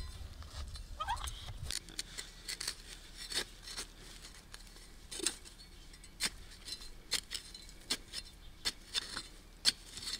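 Irregular sharp clicks and taps, a few each second, like utensils or a knife being handled during food preparation, over a low hum that stops about two seconds in.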